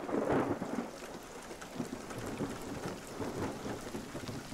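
Steady rainfall with a roll of thunder that is loudest at the start and dies away within about a second, leaving the rain with a few softer rumbles.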